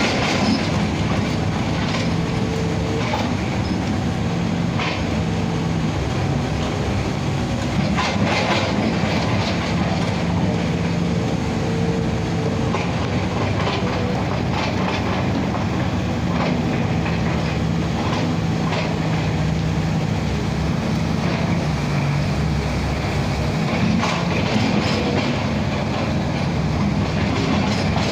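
Engine of a 25-ton crane running steadily while it hoists a load of cement sacks, with a low hum and scattered metallic clanks.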